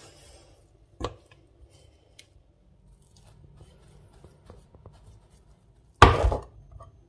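Kitchen utensil handling: a single sharp knock about a second in, like a spoon striking a bowl, then faint small clicks. About six seconds in comes a louder half-second clatter as a bowl of choux dough is tipped into a frying pan.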